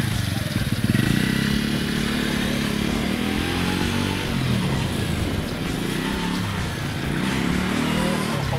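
Honda Spacy 50 scooter's small four-stroke engine running as it rides off, revving up about a second in, then rising and falling in pitch with the throttle.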